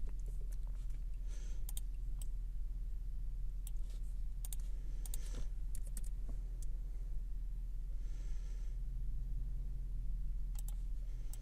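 Scattered, irregular clicks of a computer mouse and keyboard being worked, over a steady low electrical hum.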